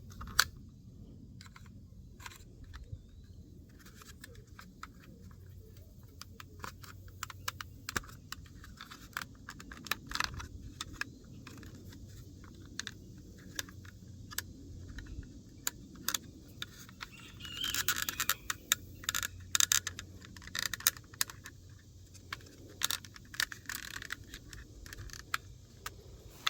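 Scattered sharp plastic clicks and scraping as a plastic screwdriver pries over the retaining tabs to free a master power-window switch from its plastic trim housing. The scraping comes thicker for a couple of seconds about two-thirds of the way through.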